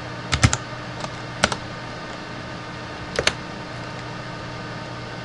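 Computer keyboard keystrokes: a few scattered taps in small clusters, about half a second in, around a second and a half, and a pair a little after three seconds, over a steady low hum.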